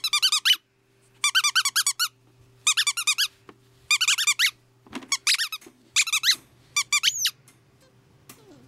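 Squeaky tennis-ball dog toy being squeezed, giving about seven quick runs of sharp, high squeaks with short pauses between them.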